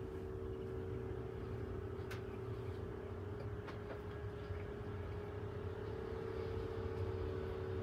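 Steady low hum of a running motor, with a constant mid-pitched tone and faint clicks a couple of seconds in.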